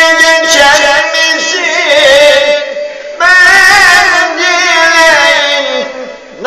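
An elderly man singing unaccompanied in long, held, ornamented phrases. He breaks off briefly about two and a half seconds in, then takes up a new loud phrase that tails off near the end.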